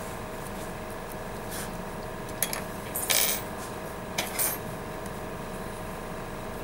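A few light clinks and a short clatter as metal dental instruments and a dental stone model are set down against a ceramic mixing palette, the loudest about three seconds in, over a steady background hum.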